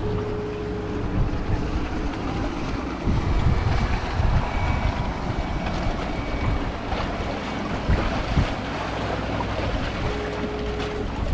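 Wind buffeting the microphone over the steady hum of a motorboat running out on the water, with waves washing against the rocks.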